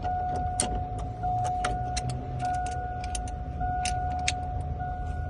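Sharp metallic clicks and key rattles as the ignition lock cylinder of a 2000 Chevy Tahoe is turned all the way with a key or tool, over a steady high-pitched electronic warning tone from the truck.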